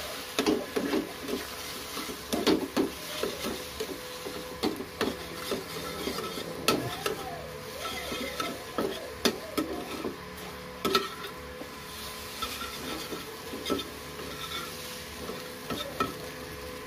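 Spatula stirring and scraping scrambled egg yolks around a small non-stick frying pan, with many irregular scrapes and taps over a steady sizzle of margarine.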